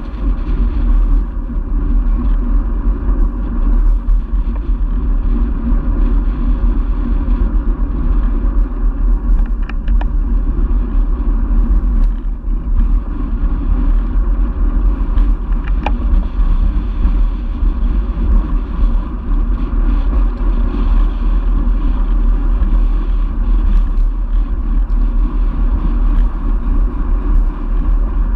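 Steady wind rush and road rumble on a bicycle-mounted camera's microphone while a road bike rides along at speed, with a few faint ticks.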